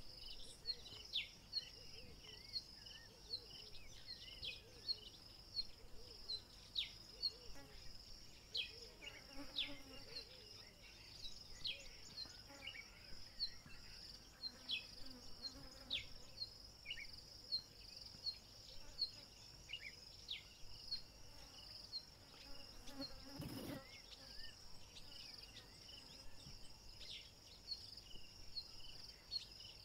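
Insect chorus: a steady high-pitched chirring, with many short falling chirps scattered over it. A single thump about three-quarters of the way through.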